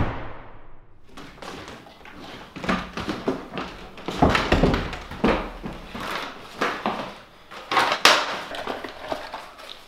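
Paper rustling with soft knocks, irregular and spaced out, as an old letter is handled, unfolded and turned over. A sharper rustle comes about eight seconds in.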